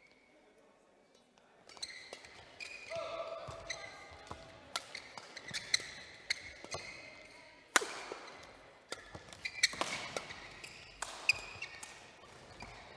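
Men's doubles badminton rally: sharp cracks of rackets hitting the shuttlecock back and forth at an uneven pace, with shoes squeaking on the court floor between shots. It starts about a second and a half in, after a brief quiet.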